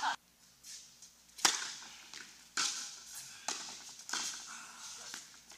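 Tennis ball being struck by rackets and bouncing on a hard court in a rally: a series of sharp pops about a second apart, the loudest about a second and a half in. Each pop has a short echo from the indoor hall.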